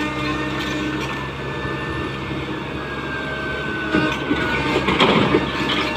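Tata Hitachi excavator's diesel engine running steadily under work. From about four seconds in, louder irregular knocks and rattles come in over it.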